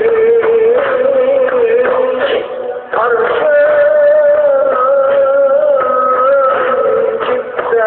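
A man singing a slow, ornamented melody in long held notes that waver in pitch, with musical accompaniment; the phrase breaks off briefly about three seconds in and a new, higher phrase begins.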